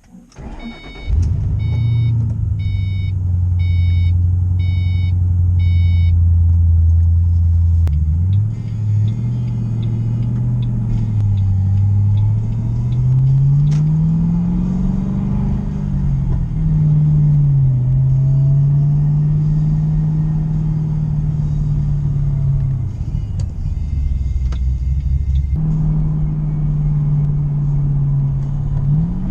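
Ford Mustang's engine starting about a second in and idling, while a dashboard warning chime sounds about six times, then the car pulling away, its engine note rising and falling as it drives.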